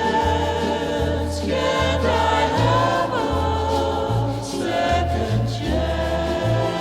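Background music: choir-like voices holding long notes over a steady, repeating bass line.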